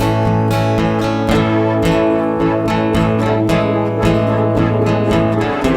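Live acoustic guitar music in an instrumental break: chords strummed in a steady rhythm, about two strokes a second, over a sustained low note.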